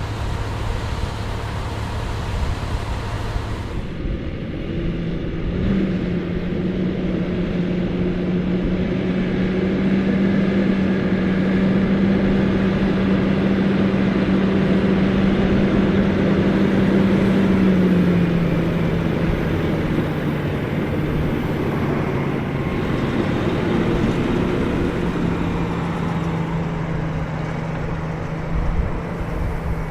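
Large diesel harvest machinery running steadily in the field, with wind on the microphone. The engine note holds steady, then drops slightly about 18 seconds in.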